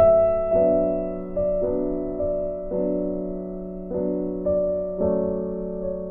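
Background music: gentle electric piano chords struck about once a second over a held low note.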